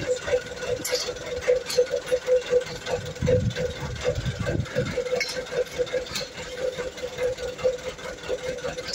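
Small engine running steadily with an even, rapid pulse, with a few scattered sharp clicks and knocks over it.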